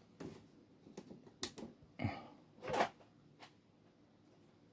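Faint clicks and knocks of a hand handling a letter light box, about half a dozen of them, the loudest two a little over two seconds in and nearly three seconds in.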